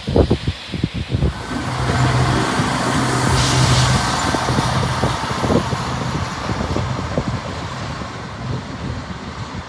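Train running past, a steady low hum over rushing noise that slowly fades toward the end.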